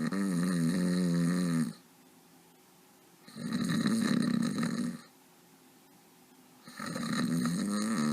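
A person snoring: three long, drawn-out snores at an even pace, one every three and a half seconds or so, with quiet breaths in between.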